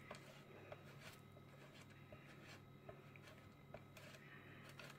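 Faint rasping and light irregular scrapes of a block of cașcaval cheese being grated on a metal box grater, over a low steady hum.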